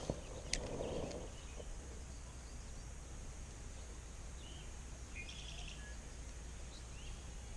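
Quiet outdoor ambience with a few faint bird chirps about halfway through.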